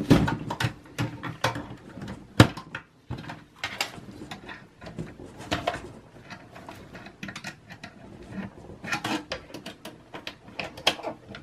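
Irregular small clicks, taps and rustles of cables, plastic connectors and a flathead screwdriver being handled inside a Dell Optiplex 3060 small-form-factor case's sheet-metal chassis, with one sharper click about two and a half seconds in.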